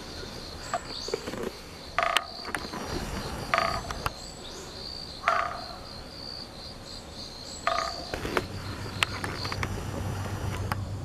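An unidentified animal call, which the recorder wonders may be a bird: a short harsh call repeated about four times, every one and a half to two seconds. Beneath it runs a steady, pulsing high insect trill, and a low hum comes in near the end.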